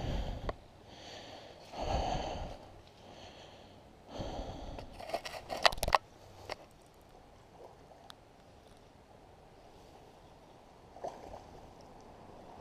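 Handling noise in the first six seconds: a few short bursts of rustling, and a quick run of sharp clicks and knocks around five to six seconds in, as a just-caught crappie and the fishing gear are handled. After that only a faint steady background.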